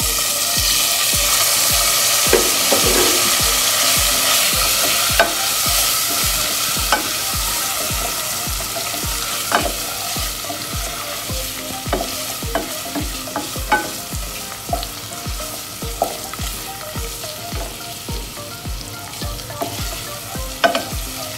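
Boiled chicken pieces dropped into hot oil with garlic powder, sizzling in a nonstick pot: loudest at first and slowly easing. A wooden spatula stirs the pieces, with frequent short clicks and scrapes against the pan.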